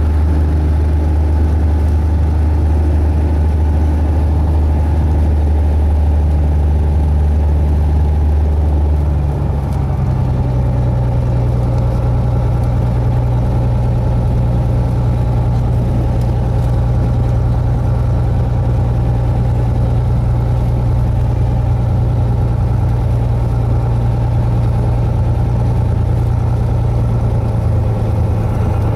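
A Cessna 172's piston engine and propeller running steadily, heard inside the cabin. About nine seconds in the engine note steps up to a higher, steady pitch as the revs are increased.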